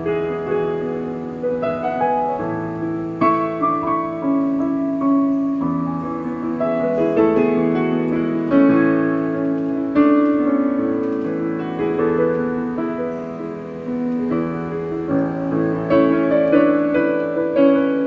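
Piano played with both hands: a flowing melody over held chords, with new notes struck every fraction of a second.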